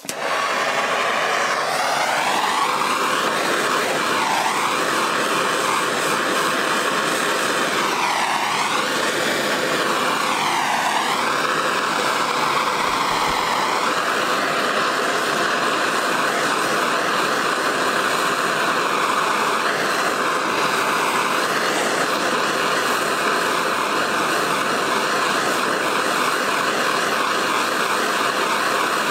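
Gas blowtorch flame burning with a loud, steady roaring hiss that starts suddenly. Its tone wavers up and down several times in the first half, then holds steady while the flame heats clamped brass bearing halves to melt the solder between them.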